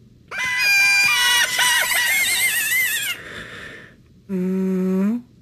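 High-pitched, squeaky cartoon voices of ZooZoo characters squealing and chattering over one another for about three seconds, with wobbling pitch. Then a breathy sigh and, near the end, a low steady hummed 'mmm' of contentment.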